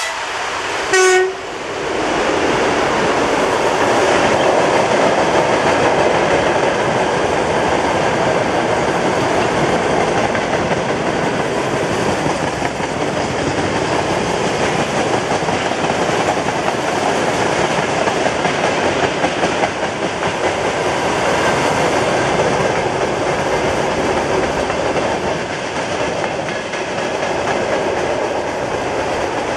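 A 2TE10MK diesel locomotive gives a short horn blast about a second in, then passes hauling a freight train. After the blast comes the steady rumble and clickety-clack of the freight wagons rolling by.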